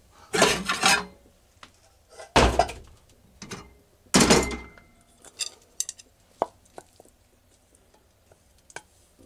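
Kitchenware clattering as rice porridge is served: a metal ladle, pot and ceramic bowl scraping and knocking in three loud bursts over the first half, then a few light clicks.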